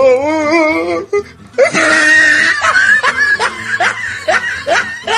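Laughter over music: a wavering, warbling vocal tone for about the first second, then a run of short rising laughs, about three a second.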